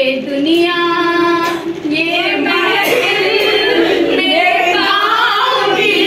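Women singing a song unaccompanied during a game of antakshari. A long held note comes about half a second in, followed by quicker sung phrases.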